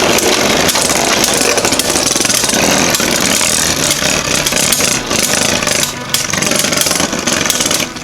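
Two Beyblade spinning tops, a 3D-printed Jynx Ouroboros and a Union Spriggan with metal swords, whirring and clattering against each other in a dense, rapid grind. The sound thins and turns patchier about five or six seconds in.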